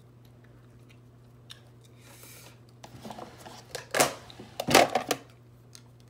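A makeup brush and blush compact handled close to the microphone: soft brushing, then loud scrapes and knocks, the two loudest about four and five seconds in.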